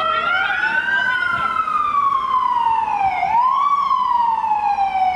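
Loud emergency-vehicle sirens wailing, two overlapping slow wails whose pitch sweeps up and down. One dips low and climbs again about three seconds in.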